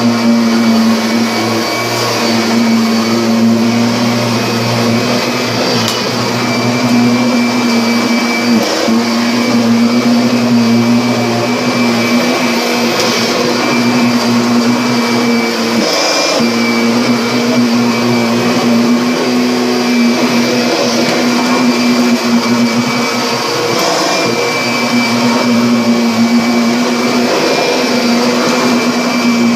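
Vacuum cleaner running steadily: a constant motor whine over a rush of air, briefly wavering a couple of times.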